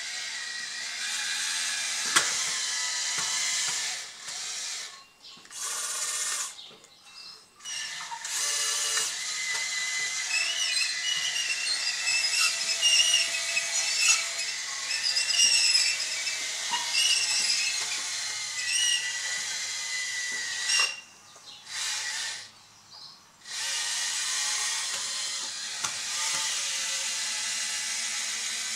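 Electric drive motors and gearboxes of a radio-controlled Bruder CAT D11 bulldozer running. They make a mechanical whine whose pitch keeps wavering as the speed and load change while it pushes its blade through the sandy material. The whine cuts out briefly several times as the dozer stops and starts.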